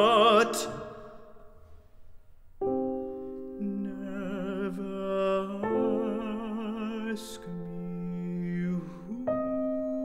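A tenor's held note with vibrato ends about half a second in. After a short hush, a piano plays slow, soft, sustained chords, a new chord about every three seconds.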